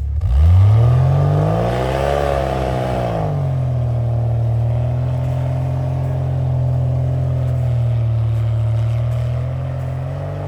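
Jeep engine revving hard, climbing to a peak about two seconds in, then easing back and holding steady at high revs for several seconds before dropping off near the end. This is the sound of a Jeep working to climb a snowy, eroded trail, where the driver is struggling and may be stuck.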